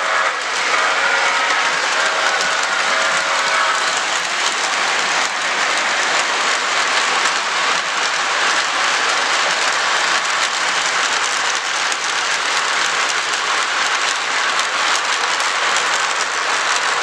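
Model steam train, a LionChief Pere Marquette 1225, running past at close range: its whistle trails off in the first few seconds, then a steady rushing rolling noise of the train and its cars on the track.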